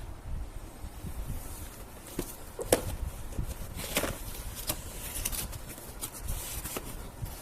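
Handling noise: a series of sharp clicks and taps, the loudest near three seconds in and another about four seconds in, over a low rumble.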